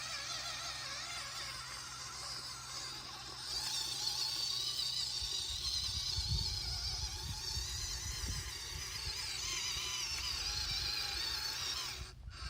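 A WPL C24 RC truck's small brushed electric motor and gears whining, the pitch wavering up and down with the throttle. It gets louder about three and a half seconds in, and an uneven low rumble joins it in the second half.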